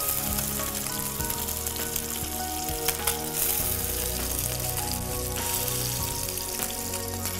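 Fish fillets sizzling steadily as they fry in hot oil in a frying pan.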